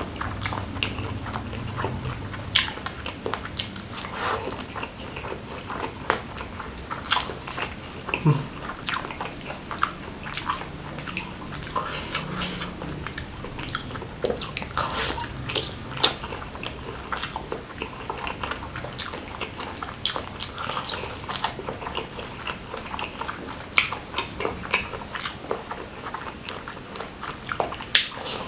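Close-miked mouth sounds of eating martabak telor, a pan-fried pastry filled with egg and beef and coated in chilli sambal: many short, irregular bites and chewing clicks.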